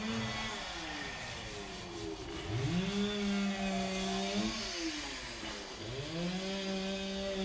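Small paint roller squealing as it is pushed back and forth across a concrete floor, rolling on epoxy primer. The squeal holds a steady pitch, then sinks and climbs back twice as the stroke changes direction.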